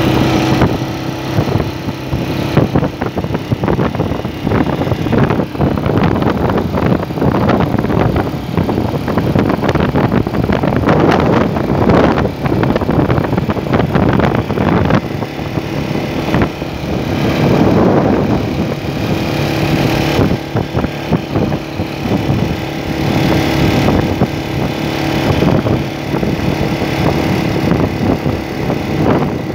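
Zanella ZR 250 LT dual-sport motorcycle's single-cylinder engine running as it is ridden along a dirt road, its note dropping and rising a few times. Wind buffets the microphone throughout.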